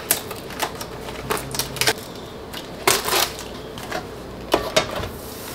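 Irregular clicks, taps and knocks of cookware and kitchen things being handled at the stove, with the loudest clatter about three seconds in.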